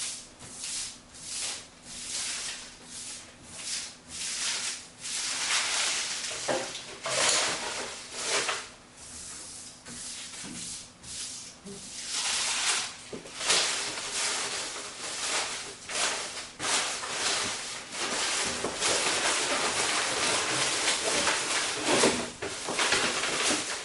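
Paper raffle tickets being swished and rubbed around a wooden table by hand, a quick run of rustling strokes at first, then longer, louder swishes. Near the end the tickets rustle inside a box as a hand stirs them.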